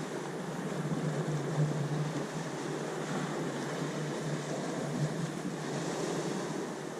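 Ocean waves washing steadily, a continuous rushing with slow swells in loudness, under a steady low hum.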